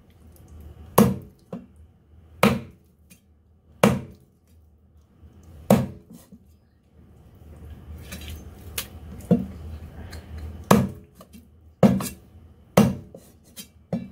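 A Chinese cleaver chopping raw chicken on a thick round wooden chopping block, going through the bone into the wood. There are about nine sharp chops, a second or two apart.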